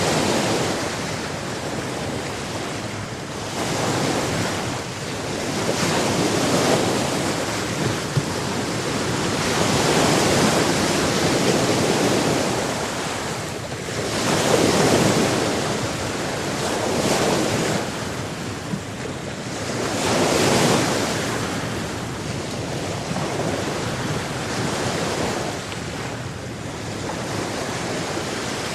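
Sea surf: waves breaking and washing up the shore one after another, a steady rush that swells every few seconds.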